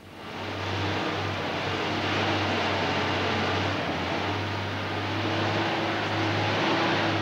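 Diesel engine of a heavy rubber-tyred underground mine loader running hard, a loud steady engine noise with a low drone that dips briefly a few times.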